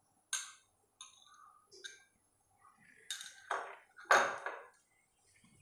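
A metal spoon clinks and scrapes against a small glass bowl as ghee is scooped out into a pan, a few short ringing taps. About four seconds in, the bowl and spoon are set down on a stone counter with a louder knock.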